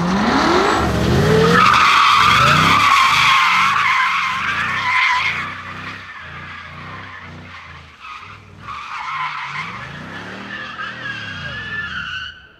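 Cars drifting: loud tyre squeal over an engine revving up in rising sweeps, which drops away about halfway through. Then a Mercedes SL's engine revs up and down, and its tyres squeal again in the last few seconds.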